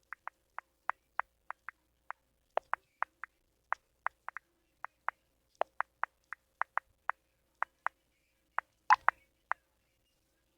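Smartphone touchscreen keyboard clicks as a message is typed: short, identical ticks at an uneven pace of about three a second, with one louder tap about nine seconds in.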